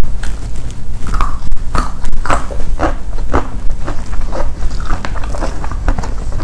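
Close-up chewing of crispy fried fish and rice, a crunchy mouth sound repeating about twice a second.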